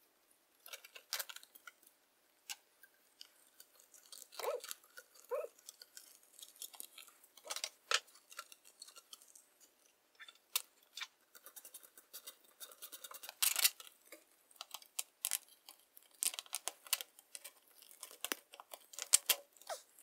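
Irregular handling noise: scattered clicks, scrapes and crinkles as a ribbed plastic flex dust-collection hose is worked onto a bracket and clamped with a hand tool.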